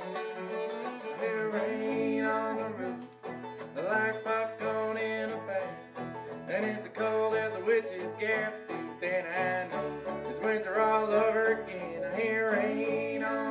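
Live acoustic string-band music: an instrumental passage led by plucked strings, with some notes sliding in pitch.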